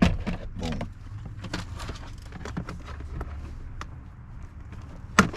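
Plastic clicks and rattles of a power window master switch being pried out of its door panel, ending in a loud sharp click near the end as it pops free, over a low steady hum.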